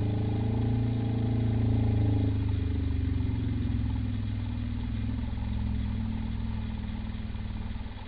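Deep, drawn-out dinosaur bellow: the roar sound effect of a Mattel Jurassic World toy, here for a crested hadrosaur. It is a low, steady drone whose higher tones drop away about two and a half seconds in, and the low part slowly fades toward the end.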